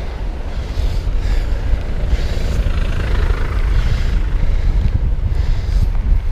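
Wind rumbling on the microphone of a camera on a moving bicycle, over a steady hiss of street traffic on a wet road that swells a few times.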